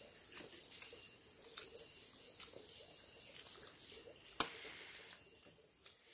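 An insect chirping steadily in the forest background: a high, evenly pulsed trill that keeps going. Faint clicks from eating and handling food are scattered through it, with one sharp click about four and a half seconds in.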